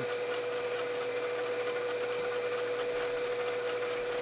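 Motor of a workshop machine running steadily with a constant hum, while a hole is tapped in 4140 steel; the maker doesn't like the sounds and fears the part is shifting.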